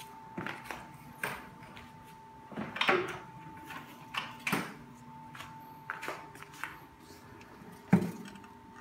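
Scattered knocks and clunks of a floor jack being moved and positioned under a car's front subframe, with one louder thump about eight seconds in, over a faint steady high whine.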